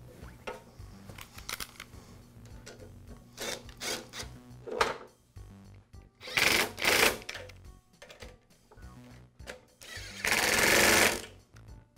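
Cordless power driver with a socket running in short bursts, driving in the carburetor mounting bolts on a small engine: two quick runs about six and seven seconds in, then a longer run of about a second near the end, with small clicks of handling between.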